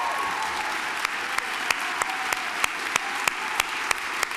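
Audience applauding. One clapper close by stands out from about a second in, clapping sharply about three times a second.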